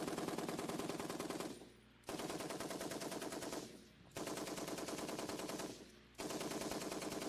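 M60 7.62 mm machine gun firing on full automatic in short bursts: four bursts of about a second and a half each, separated by half-second pauses.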